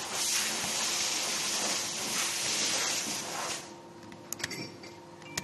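A steady hiss that cuts off suddenly about three and a half seconds in, followed by a few small sharp clicks as a metal pick works at the Hall sensor board seated in an electric-scooter motor stator.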